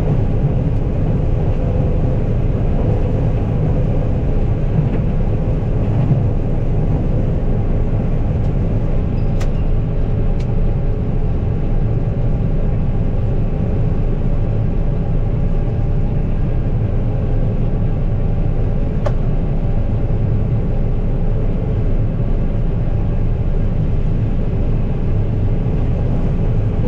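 Combine harvester running steadily while shelling corn: a constant, even engine and machinery rumble with a steady hum.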